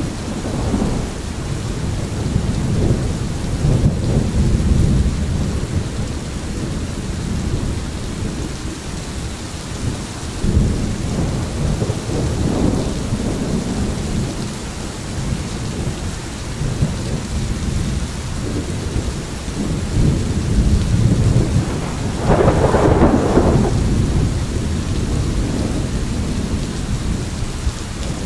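Thunder rumbling in rolling swells over steady heavy rain, with a louder, sharper peal about three-quarters of the way through.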